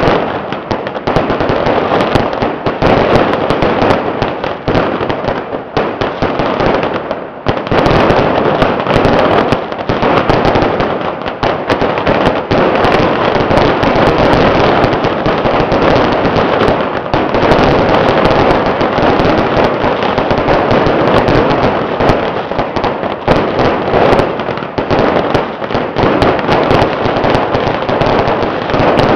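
A long, dense barrage of firecrackers going off in continuous rapid crackling, with a brief dip about seven seconds in.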